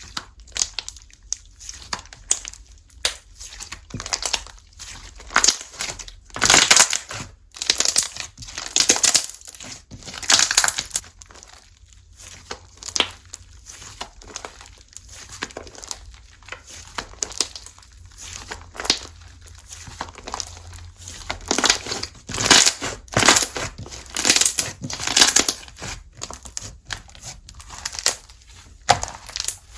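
Slime being pressed, squeezed and pulled by hand, giving crackly, crunchy clicks and pops. These come thickest in two busier stretches, about a quarter of the way in and again about three-quarters through.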